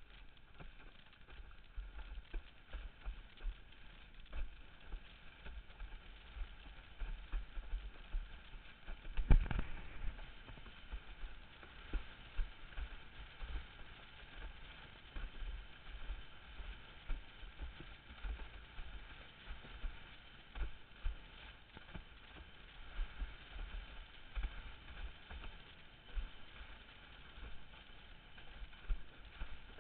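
Formula windsurf board (Mike's Lab L8) planing over chop: a steady rushing noise with irregular dull knocks as the hull slaps the waves, and one much harder thump about nine seconds in.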